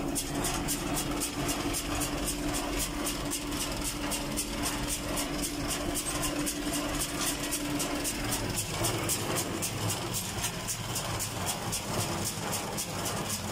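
Fendt 310 Vario tractor's four-cylinder diesel running steadily, heard inside the cab, held at about 1300–1400 rpm to drive a John Deere 349 square baler through the PTO. A fast regular high ticking runs alongside, and a steady whine stops about two-thirds of the way through.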